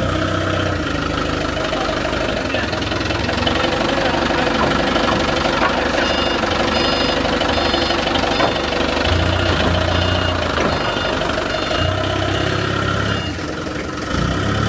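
Heavy diesel machine engine running steadily at idle, with a few brief high-pitched tones partway through.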